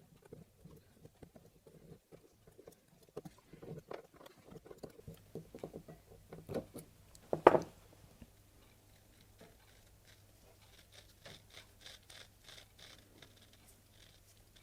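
Small metal clicks and scrapes of hand tools working the axle and cone nut of a bicycle pedal as it is put back together. There is one sharper click about seven and a half seconds in, then a run of faint light ticks near the end.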